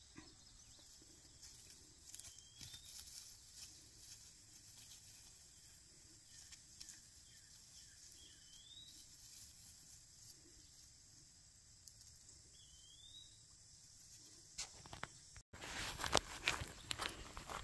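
Faint outdoor quiet with a short rising chirp three times, about every five seconds. Near the end, footsteps swish and crunch through grass.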